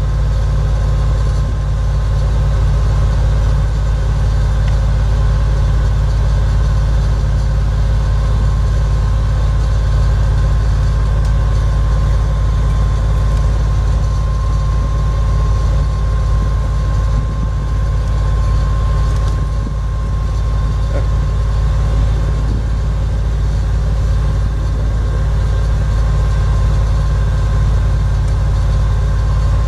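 1999 GMC C6500 truck's 7.4-litre V8 gas engine idling steadily, with a thin steady whine over the deep engine note.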